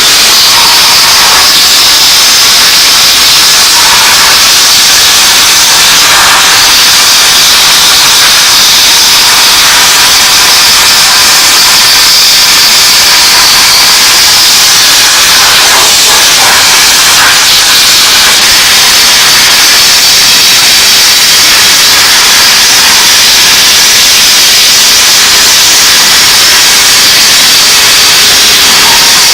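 Minimax water-spray parts cleaner spraying, a loud steady hiss that runs without a break.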